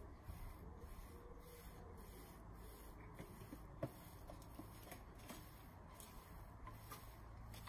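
Near silence: faint outdoor background with a handful of soft ticks and rustles, the clearest a little under four seconds in.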